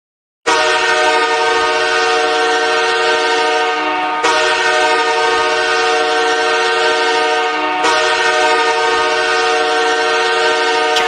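Los Angeles Kings hockey goal horn sounding a loud, steady chord of several notes. It starts suddenly about half a second in and sounds again twice, at about four and eight seconds in, for three long blasts in a row.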